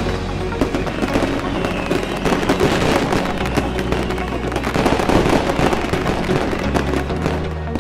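Fireworks sound effect: a dense, continuous run of bangs and crackling from many bursts, over background music. The crackling stops shortly before the end, leaving the music.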